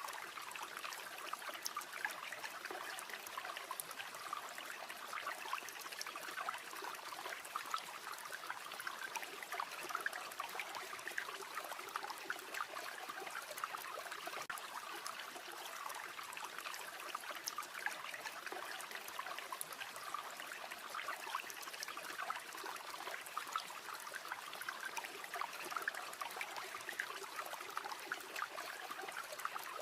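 A river flowing steadily, with many small crackles and pops scattered throughout from a campfire.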